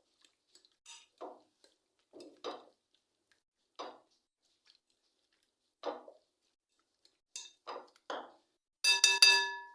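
A spoon mixing marinated chicken pieces with egg in a bowl: separate scrapes and clinks every second or two, then near the end a louder clink that rings on briefly.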